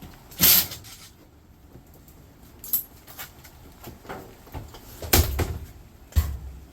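Irregular knocks and clanks from scrap being worked apart by hand. The loudest comes about half a second in, with a cluster of hits about five seconds in and another just after six.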